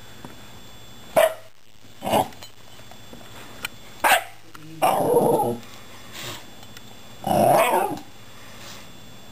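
Shiba Inu "talking" at cats: three short, sharp barks, then two longer calls with wavering pitch, each about half a second to a second long.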